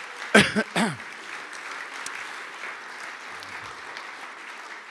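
An audience applauding steadily. About half a second in, two short, loud bursts of voice rise above the clapping.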